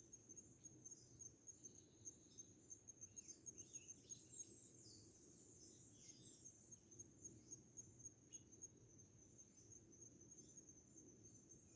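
Faint chirping of small birds: many short, high, quick chirps, busiest in the first half, over a steady high pulsing trill of an insect.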